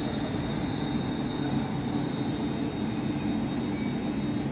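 Two coupled Class 360 Desiro electric multiple units running past at speed: a steady rumble of wheels on rail, with a steady high whine alongside.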